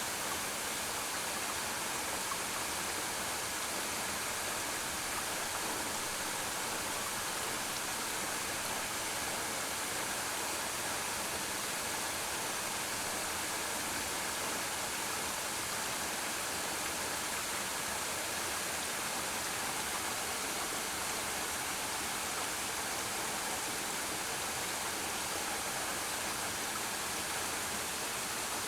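Waterfall pouring steadily into a pool, a constant even rush of falling water.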